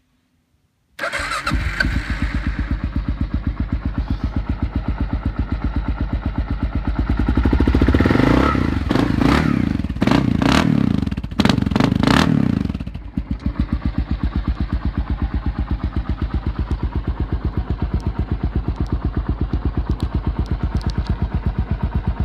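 A 1999 Kawasaki KLR650's single-cylinder engine starts about a second in and idles with an even beat. From about eight seconds it is revved several times, then it settles back to a steady idle.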